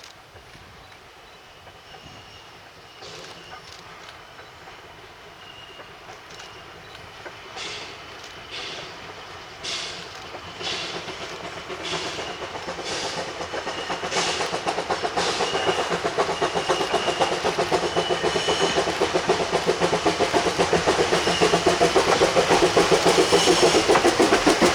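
Bridgton and Saco River #7, a two-foot-gauge steam locomotive, approaching with its train and growing steadily louder. Wheels click over the rail joints about once a second at first, and a fast rhythmic beat builds up through the second half.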